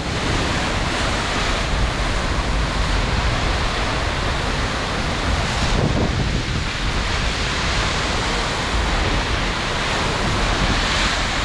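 Ocean surf breaking and washing against rocks below, with wind buffeting the microphone.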